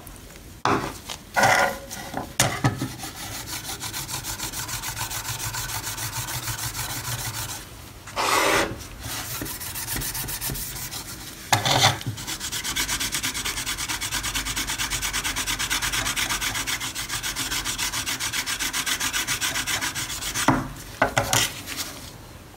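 A hand-held metal brush is scrubbed rapidly back and forth over a heavily rusted steel knife blade, a steady rasping scrub at about four strokes a second. A few short knocks and handling clatters break in where the blade is turned and repositioned on the wooden table.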